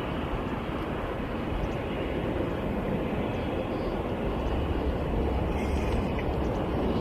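Boeing 787-9 airliner's jet engines on approach, a steady distant rumble slowly growing louder.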